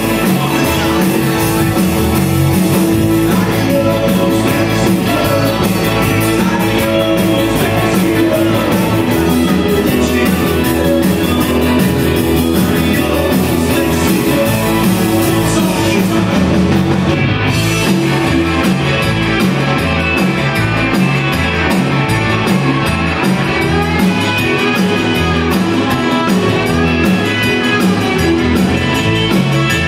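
Live Tex-Mex rock band playing through a PA: electric guitars, button accordion, keyboard and a drum kit with a steady beat, heard through the audience's recording.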